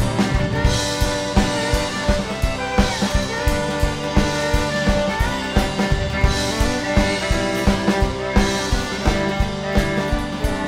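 Live rock band playing an instrumental passage: drum kit keeping a steady beat under sustained guitar chords.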